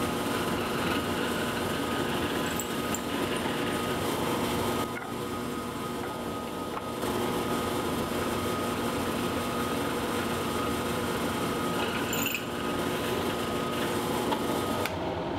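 Drill press running steadily while a small Forstner bit bores out small holes in cherry wood. It goes quieter for about two seconds around five seconds in.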